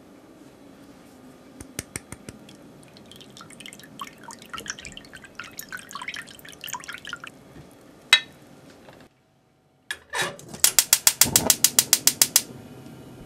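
Food-preparation sounds: a few light clicks, then a fine crackling of liquid or bubbles for several seconds. After a short break comes a fast run of about a dozen loud, even strokes, a bit under ten a second, of mixing in a bowl.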